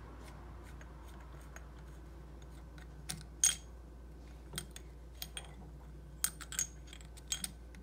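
Light metallic clicks and clinks as the stainless top collar of a pull-down kitchen faucet spray head is worked loose and lifted off. One sharp clink about three and a half seconds in, then a scatter of lighter taps.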